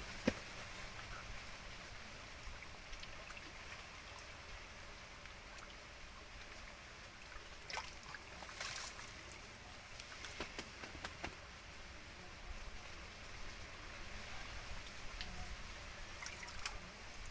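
Faint trickling and sloshing of shallow muddy water as hands grope about under the surface, with a few small splashes around the middle and near the end.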